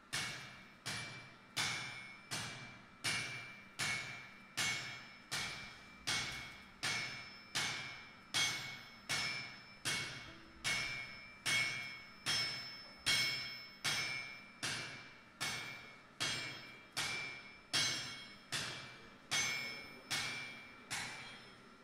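Hand hammer forging a red-hot metal bar held in tongs on a steel anvil, in a steady rhythm of about four blows every three seconds. Each blow rings on with a high metallic tone that dies away before the next.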